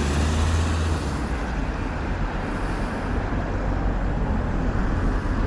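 Road traffic: a van passes close by, its low engine rumble strongest for about the first second, then a steady wash of street traffic noise.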